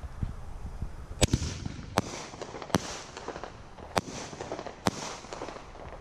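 Consumer aerial fireworks going off: five sharp bangs about a second apart, each followed by a brief crackling hiss.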